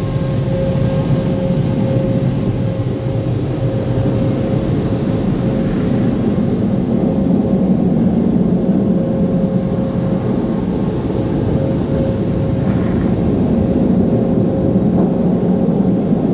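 Automatic tunnel car wash machinery and water spray, heard from inside the car's cabin as a loud, steady noise with a constant hum.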